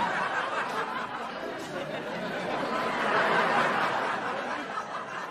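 Studio audience laughing, a sustained wash of laughter that swells about three seconds in.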